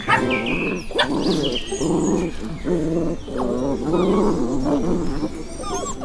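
Small puppy growling and yapping in a string of short calls while it tugs at a slipper in play.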